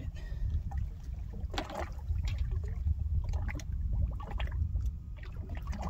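Water splashing and lapping at the side of a small boat, over a steady low rumble of wind on the microphone.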